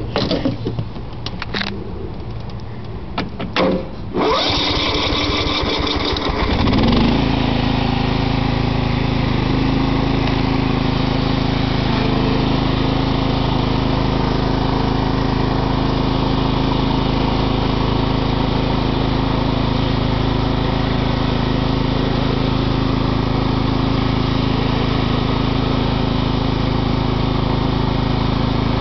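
A few clicks, then a Craftsman riding lawn mower's engine cranking on its electric starter. It catches about seven seconds in and settles into a steady run. This is its first start after sitting for two and a half months.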